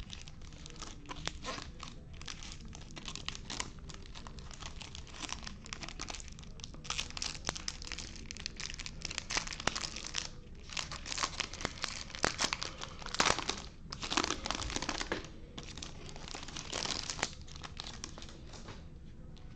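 Foil wrapper of a Topps Chrome baseball card pack crinkling and tearing as gloved hands open it, a string of short rustles that are loudest in the middle.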